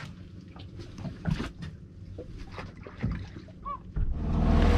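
Scattered knocks and clatter of someone moving about and handling gear on a small fibreglass boat's deck, then about four seconds in a louder steady low rumble with hiss takes over.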